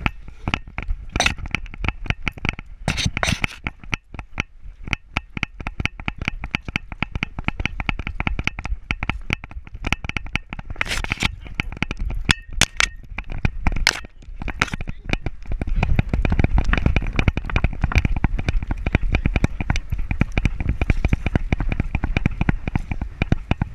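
Rapid, irregular clicking, rattling and rubbing from a GoPro in a dog-harness mount jostling with a beagle's steps, with the metal leash clip and chain clinking at the harness. A heavier low rumble joins about two-thirds of the way in.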